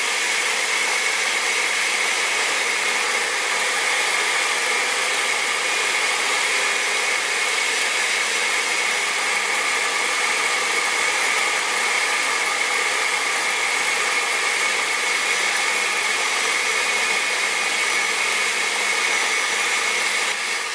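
Countertop blender with a glass jar running steadily, puréeing a thick chile adobo of soaked chiles, garlic and vinegar. The mix is thick enough that the blender would not pull it, so more vinegar is poured in while it runs. It is switched off at the very end and winds down.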